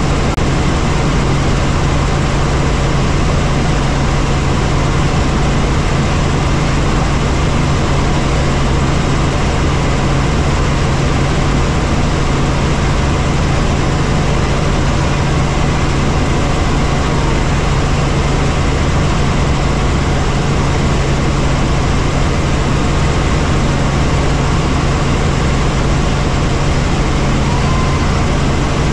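Helicopter in flight: a loud, steady drone of engine and rotor with a strong low hum, unchanging throughout.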